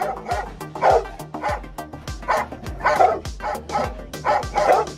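A guard dog barking repeatedly in short, uneven barks, about two a second, warning off a person on its handler's "watch him" command. Music with a steady low beat plays underneath.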